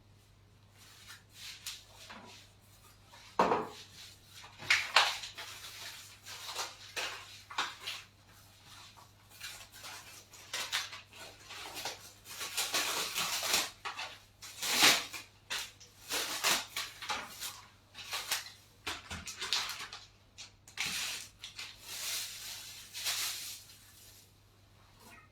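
Kitchen dishes and utensils clattering and clinking during food preparation: irregular knocks and clinks with stretches of scraping or rustling, the sharpest knocks about three and a half seconds in, about five seconds in and around fifteen seconds in. A faint steady low hum runs underneath.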